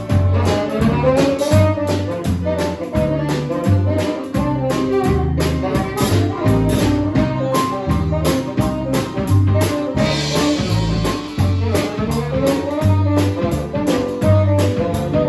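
A small live band playing a jazzy tune: saxophone and accordion over upright double bass notes on the beat, electric guitar, keyboard and drum kit, with a cymbal wash about ten seconds in.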